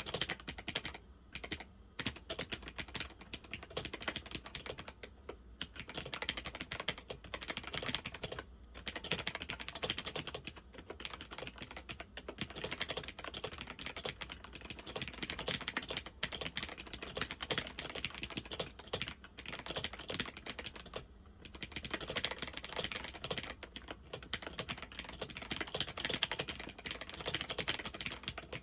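Fast continuous typing on a laptop keyboard with Alps SKFL switches, a dense run of clicky keystrokes with brief pauses now and then.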